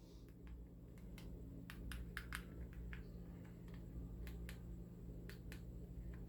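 Faint plastic clicks of TV remote control buttons being pressed over and over at an uneven pace, over a steady low electrical hum.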